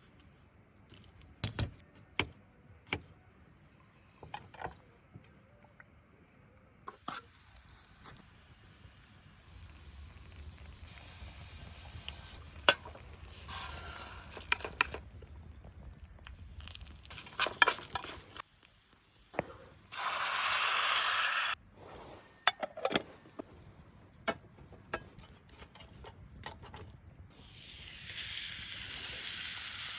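Cooking in a pan over a campfire: scattered clicks and knocks of utensils, then hot oil starting to sizzle. About two-thirds of the way in there is a loud hissing burst lasting about a second and a half, and near the end the sizzling swells and holds steady.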